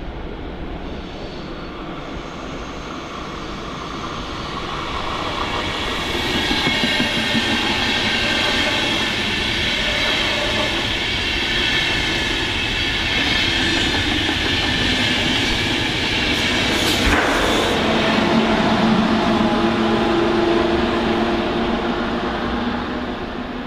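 A Deutsche Bahn InterCity push-pull train passing on the rails, pushed by a Class 101 electric locomotive at the rear. The rolling wheel noise builds as the train approaches, then stays loud with a high steady whine over it. There is one sharp click about 17 seconds in, and lower steady tones as the locomotive goes by near the end.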